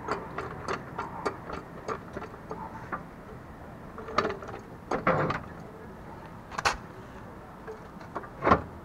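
Hand work on a car's front suspension: light, even metallic clicks about three a second, then several louder knocks as parts and tools meet while a lower control arm is fitted.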